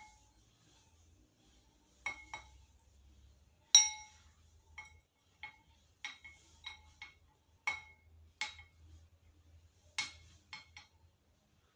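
Metal spoon clinking against a ceramic plate and bowl, about fifteen light strikes each with a short ring, the loudest about four seconds in.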